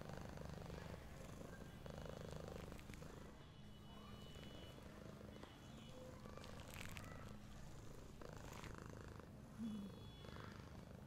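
Domestic cat purring steadily, with a few faint handling clicks and a brief short sound near the end.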